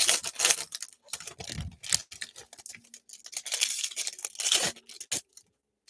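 Basketball card packs and wrappers being torn open and crinkled, with the cards handled: an irregular run of rips and rustles with short pauses.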